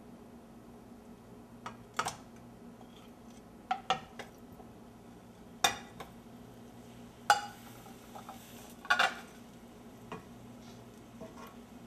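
Metal utensil clinking and knocking against a frying pan while pieces of fish are laid in and turned in hot oil: about seven short, sharp clatters at irregular intervals, over a faint steady hum.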